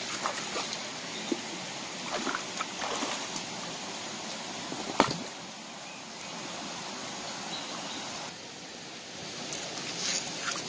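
Shallow rocky stream running steadily, with splashing as someone wades and handles rocks in the water, and a single sharp knock about five seconds in.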